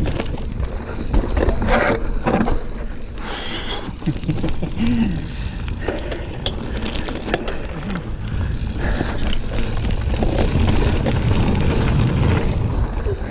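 Giant Fathom 29 2 mountain bike climbing a dirt trail: tyres rolling over the ground with a steady low rumble, and the chain and drivetrain rattling with scattered clicks and knocks.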